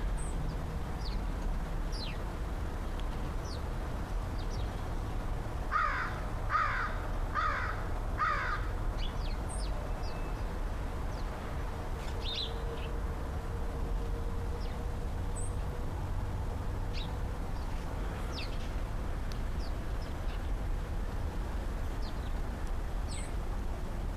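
American crow cawing four times in quick succession, each caw under a second after the last, about six seconds in. Small birds chirp faintly throughout over a steady low rumble.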